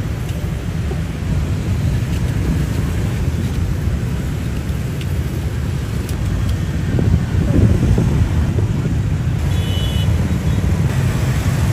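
Steady low rumble of street traffic, swelling about seven seconds in.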